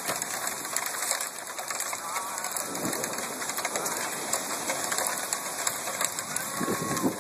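Hail falling: a steady, dense pattering of many small sharp ticks as hailstones strike the ground and nearby surfaces.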